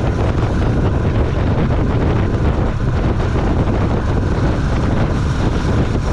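Steady wind rush on the microphone of a Honda CB400SS motorcycle under way, with its single-cylinder engine running beneath.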